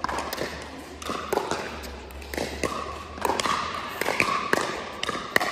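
Pickleball rally: a quick series of sharp pops as paddles strike the hollow plastic ball, with the ball bouncing on the hard court in between, each hit ringing briefly in the hall.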